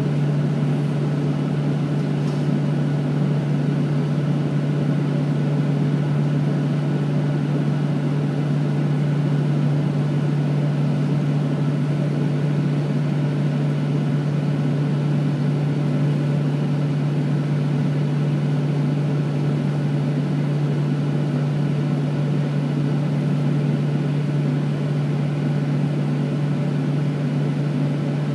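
Steady hum of a Boeing 737-800's air-conditioning and ventilation, heard inside the parked cabin before the engines start. It has one strong low steady tone.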